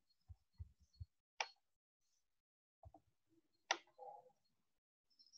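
Near silence: room tone broken by a few soft low thumps in the first second and two sharp clicks, about a second and a half in and just before four seconds.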